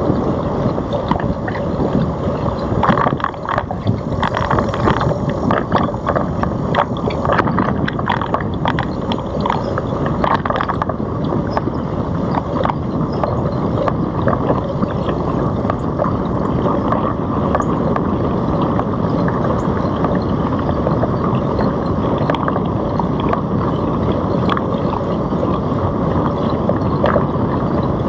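Wind rushing over the microphone of a GoPro riding on a moving Citi Bike, over a steady rumble from the ride. A run of small clicks and rattles comes and goes in the first third.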